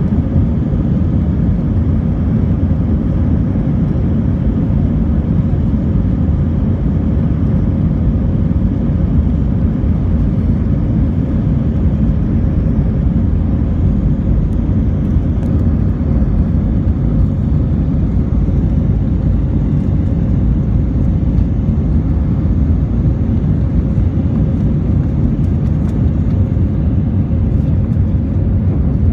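An airliner's jet engines at takeoff thrust, heard from inside the cabin over the wing, with the low rumble of the takeoff roll. The sound is a loud, steady low roar with a faint steady hum in it.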